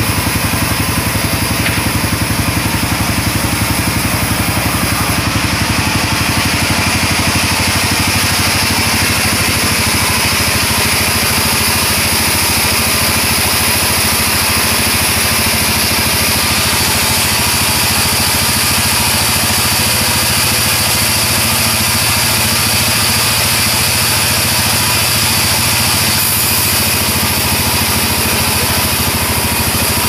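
Band sawmill running steadily, its blade sawing lengthwise through a sengon (albizia) log on the carriage: a constant machine hum under a strong high-pitched hiss.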